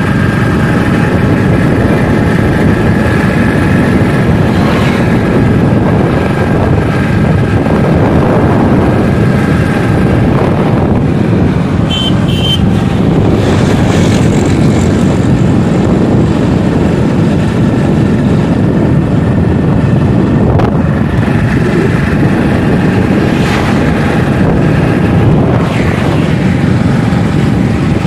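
Motorcycle on the move at a steady pace, its engine and the rush of the ride loud and even.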